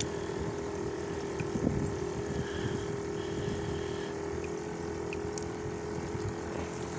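A small pump humming steadily over a wash of water noise.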